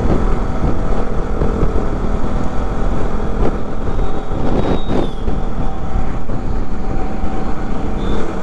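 KTM RC 200's single-cylinder engine running steadily while riding, under wind buffeting the microphone.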